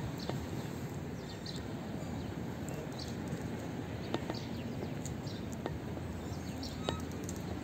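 Small birds chirping in short scattered calls over a steady low background noise of the open harbourside, with a few faint clicks.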